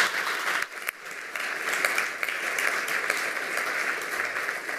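Audience applauding, with a brief dip just under a second in before the clapping carries on steadily.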